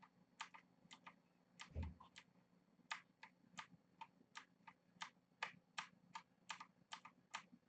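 Clicky blue-switch mechanical keyboard keys pressed lightly one at a time, faint separate clicks at about two to three a second, with one soft low thump just under two seconds in.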